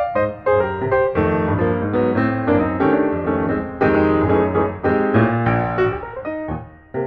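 Piano music: a busy run of struck notes, several a second, thinning and quieting briefly near the end.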